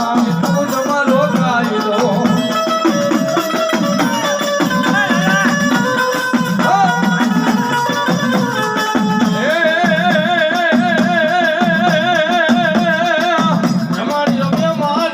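Gujarati devotional folk music with singing over a steady drum beat and percussion. About two-thirds of the way in comes a long held note with a heavy, even vibrato.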